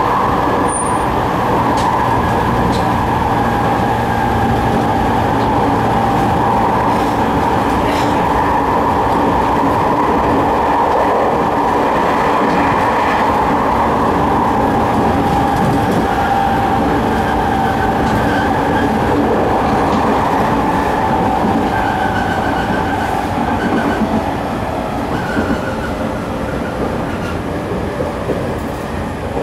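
Running sound of a JR 209 series 3100 subseries electric train with a GTO-VVVF inverter and MT73 traction motors, heard from inside the car: a steady rumble of wheels on rail with humming motor tones that slowly fall in pitch as the train slows.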